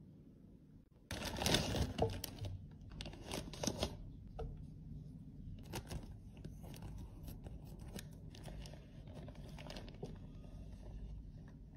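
A plastic bag of loose cosmetic powder crinkling as it is handled and cut with scissors. The sound comes as a series of crackly bursts, loudest about a second in.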